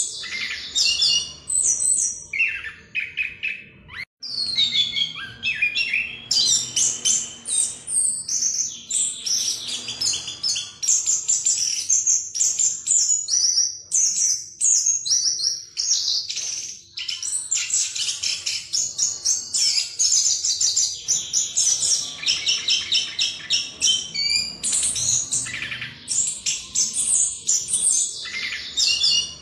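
Chestnut-capped thrush (anis kembang) singing a long, rapid, rolling ('ngerol') run of high whistled and chattering notes, with one brief break about four seconds in.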